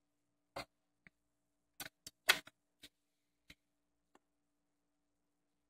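Kenwood KD-50F turntable's controls and tonearm mechanism clicking as the tonearm is moved from its rest out over the record: about nine light clicks over the first four seconds, the loudest a little past two seconds in, over a faint steady hum.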